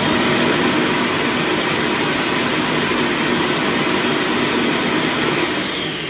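Roomba Clean Base auto-empty station evacuating the j7's bin: a loud, steady vacuum roar with a high whine, jet-engine loud. It spools up just before and begins winding down near the end.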